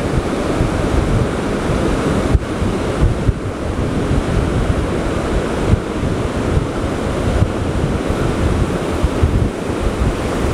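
Surf breaking on a beach in a steady, loud rush, with strong wind buffeting the microphone and adding a heavy low rumble.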